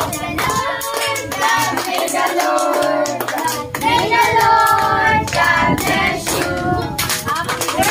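A group of children and adults singing together, with hand clapping along.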